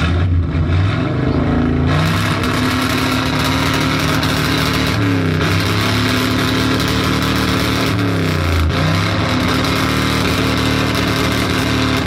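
Old Ford pickup truck's engine revved hard and held at high revs, dipping briefly and climbing again twice, then easing off near the end.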